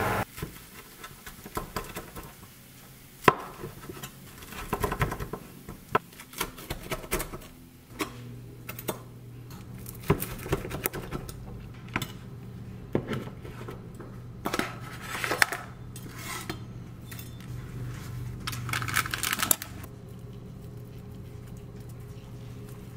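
Kitchen utensil clatter: a knife cutting and tapping on a wooden cutting board, with a plate and utensils being handled, making irregular clicks and knocks, the sharpest about three seconds in. A low steady hum comes in about a third of the way through.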